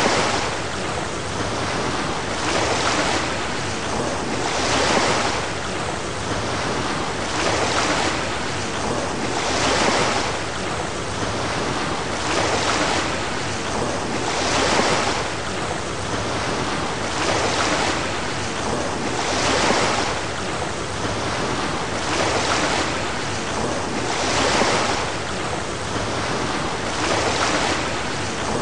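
Sea surf washing in a steady rhythm, swelling and fading about every two and a half seconds, with a constant rush of water and wind noise between the swells.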